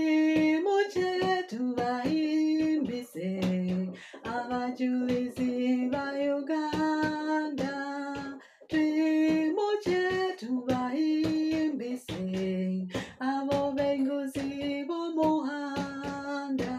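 A woman singing solo, holding long notes in slow melodic phrases with short breaks between them.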